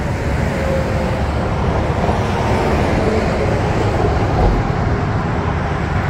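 Steady traffic noise from a busy freeway, cars and trucks passing at speed close by.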